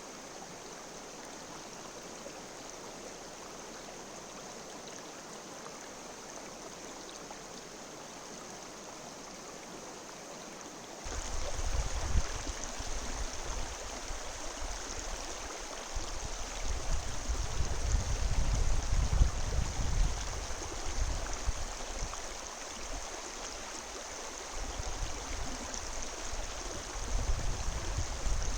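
A river's current running, a steady rush of flowing water. About eleven seconds in the sound jumps louder, with a low rumble that swells and fades.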